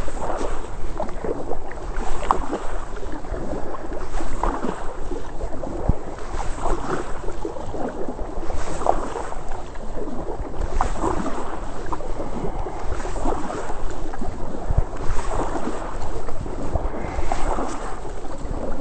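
Double-bladed kayak paddle strokes dipping and splashing into calm water, alternating sides about every two seconds, over a steady low rumble of wind on the microphone.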